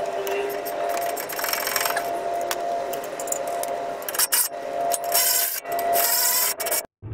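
Socket ratchet clicking and rasping while the 18 mm caliper bracket bolts on a brake job are worked loose, with a steady hum of tones underneath. It cuts off abruptly near the end.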